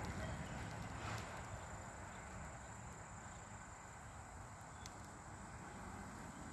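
Quiet outdoor background: a low rumble with a faint steady high-pitched tone over it, and no distinct event.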